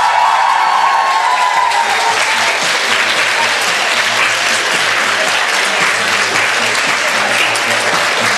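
Audience applauding steadily, with a drawn-out cheer that fades over the first couple of seconds.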